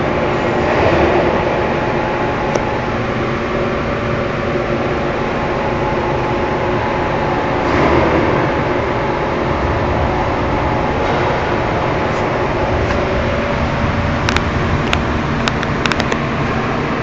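Wire-cutting machine running: a steady mechanical hum with several held tones, and a short run of sharp clicks near the end.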